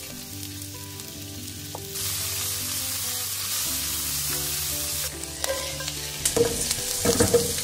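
Food sizzling in a hot pan, the hiss swelling about two seconds in and holding steady, over background music with sustained low notes. Near the end, a quick run of clattering knocks rises above the sizzle.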